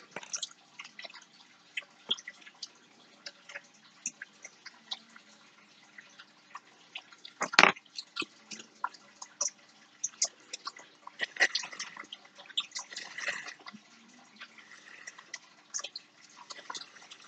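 Small handling sounds of fingers working a bent wire paperclip, thread and a tube of super glue on a tabletop: scattered light clicks and ticks, with one sharper knock about eight seconds in and some rustling after it.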